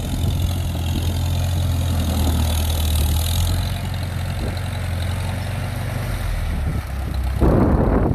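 1953 Farmall tractor's engine running with a steady low note as it works along a gravel driveway, grading it. About seven seconds in, a louder rushing noise comes in as the tractor comes close.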